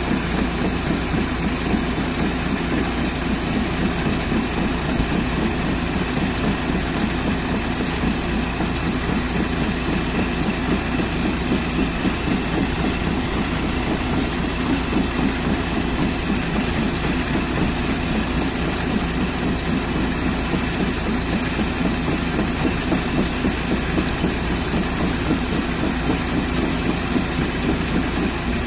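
An engine idling steadily, an even drone that neither revs nor changes.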